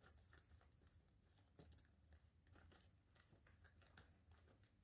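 Faint, irregular snips of scissors cutting through a plastic mailer bag, with light crinkling of the plastic.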